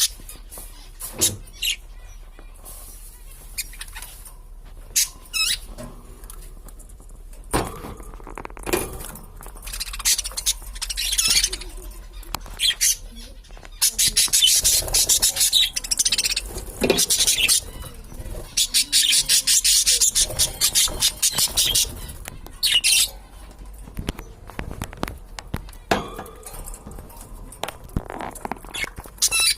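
Two budgerigars chirping and warbling: scattered short calls at first, then a long stretch of fast, continuous chattering warble in the middle, thinning back to separate chirps near the end.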